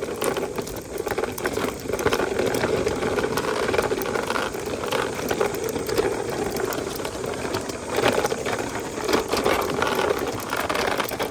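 Toy car rolling over bumpy ground: a steady whir with irregular plastic rattling and clatter.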